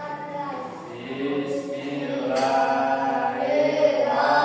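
A class of children chanting together in unison, drawn-out sung syllables, growing louder about a second in.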